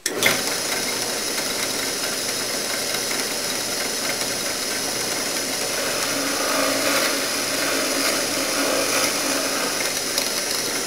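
Drill press running and boring a dowel hole into a curly maple veneered door. The motor and cutting noise starts abruptly and holds steady.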